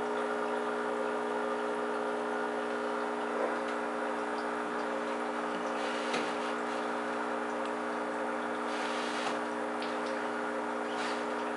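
Aquarium pump running with a steady hum and hiss, a few faint clicks standing out now and then.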